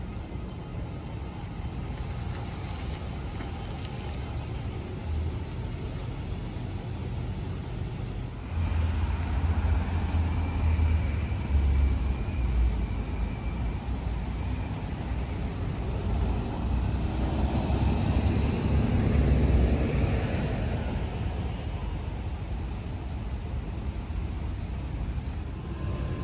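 Street traffic, then a city bus driving past: its engine rumble swells and fades, loudest about halfway through and again near the two-thirds mark, as it rounds the curve and moves on.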